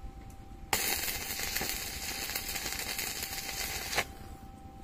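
Stick-welding arc struck about a second in, burning with a steady, loud crackling hiss for about three seconds as a nut is welded onto a bolt, then cut off sharply.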